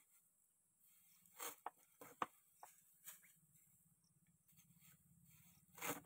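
Near silence broken by about seven faint, short knocks: paddy straw being chopped to length by hand on a small wooden straw cutter, a cluster of strokes after the first second and one more at the end.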